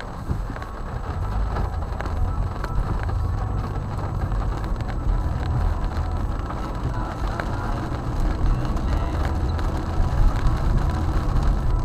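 Car cabin noise while driving in rain: a steady low road and engine rumble, with rain hitting the roof and windows as faint scattered ticks.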